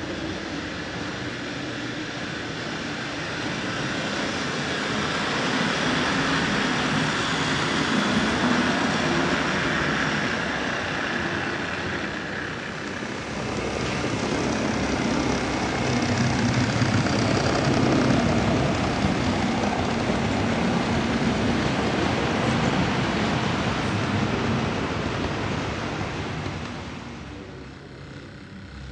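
N-scale model trains running on the layout: the steady rolling rattle of small wheels on track with a low motor hum. It swells and fades as trains pass and drops away near the end.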